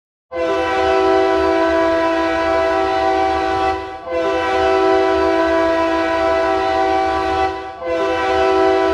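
A multi-tone horn sounding a held chord in three long, steady blasts, each about three and a half seconds, with short breaks between them, over a low rumble.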